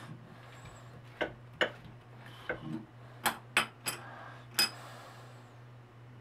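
Sharp metallic clicks and clinks of small steel parts and a hex key knocking together as the strainer's shaft and spring are handled: about eight of them, uneven, between about one and five seconds in. A steady low hum lies under them.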